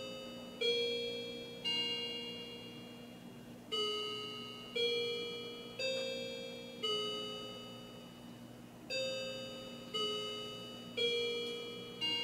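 Battery-operated clock chime movement playing its hour chime through the clock case: bell-like notes about one a second, each dying away, in four-note phrases with a short pause between them. The newly fitted chimes are working.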